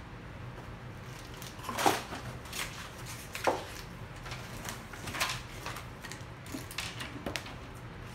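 Cardboard snack box and its contents being handled and rummaged through: scattered rustles and light knocks, the two sharpest about two and three and a half seconds in.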